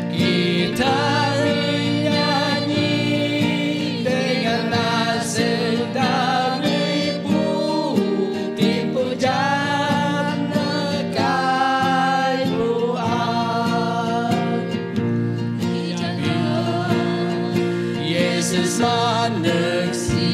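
A small group of men and women singing a gospel song in the Bidayuh Bukar-Sadong language, accompanied by acoustic guitar.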